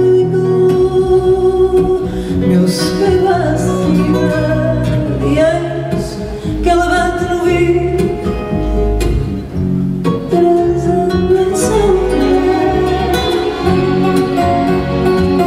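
Live fado: a woman singing a slow melody with sliding, held notes, accompanied by plucked Portuguese guitar and classical guitar.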